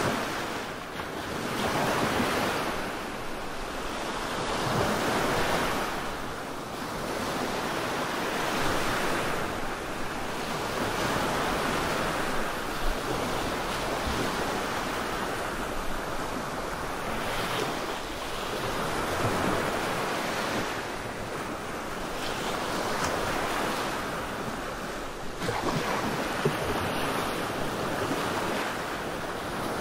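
Relaxation noise track of rushing surf: a steady wash of noise that swells and falls back irregularly every few seconds, like waves breaking and receding.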